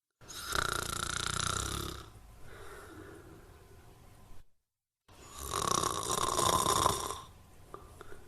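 A person snoring: two loud snores about two seconds long, each followed by a softer breath. A short stretch of complete silence falls between them.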